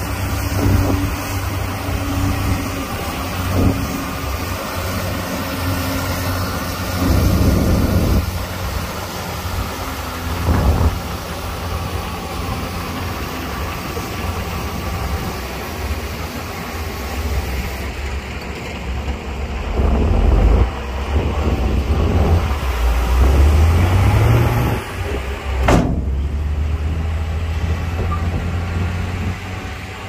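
Diesel engines of heavy earthmoving machinery running under load, with swells in power. An engine revs up about three-quarters of the way through, followed by a single sharp metallic clank.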